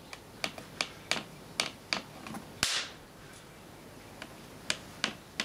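Sharp electrical snaps of a charged capacitor bank discharging through a circuit board's copper tracks to ground, blowing the tracks one after another. A quick run of about seven cracks over the first three seconds, the last one the biggest, then a pause and three more near the end.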